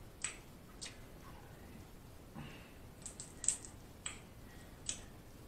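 Boiled crawfish shell cracking and crackling as it is peeled by hand: a string of faint, separate clicks and snaps, with a small cluster of them past the middle.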